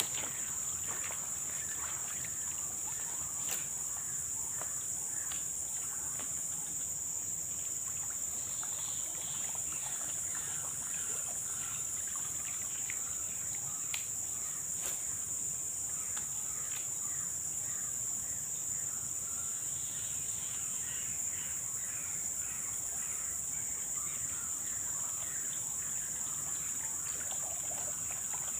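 Steady high-pitched drone of an insect chorus, crickets or cicadas, with scattered short chirps and a few faint clicks.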